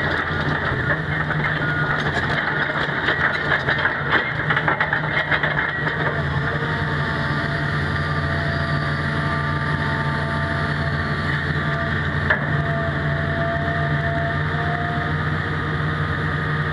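2007 Hitachi ZX350LC-3 excavator's diesel engine running steadily with a deep hum. Gravel crackles under the tracks for the first several seconds. After that, thin hydraulic whines shift in pitch as the boom and arm stretch out and the bucket is lowered, with one sharp click near the end.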